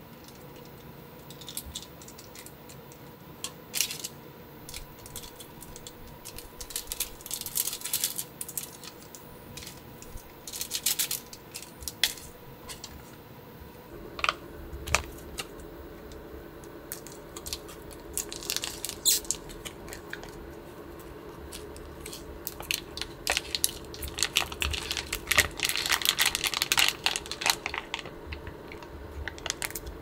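Plastic food packets crinkling and rustling as toppings are shaken into a steel pot of ramen, with scattered small clicks and taps. A steady low hum starts abruptly about halfway through.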